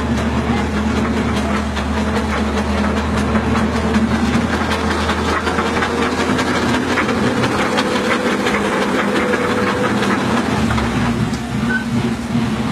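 A large engine running steadily, with clatter over it.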